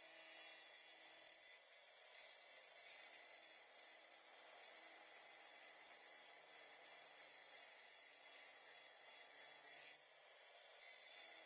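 Power grinder grinding steel, shaving the heads off the old leaf-spring hanger rivets on the truck frame: a steady, high-pitched grinding hiss.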